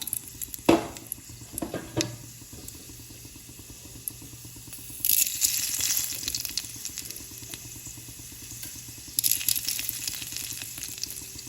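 Tempering frying in hot oil in a kadai, starting with urad dal just added: two sharp knocks in the first two seconds, then the sizzling swells twice, about five seconds in and again about nine seconds in.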